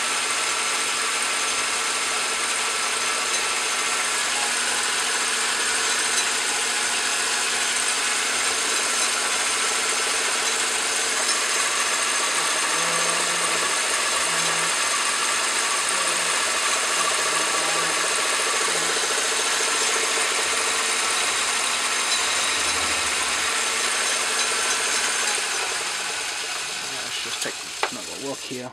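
Craftsman Atlas metal lathe running steadily, turning a half-inch square aluminium bar in a four-jaw chuck, with a constant motor and drive whine over a cutting hiss. A few seconds before the end it winds down, with a couple of knocks as it stops.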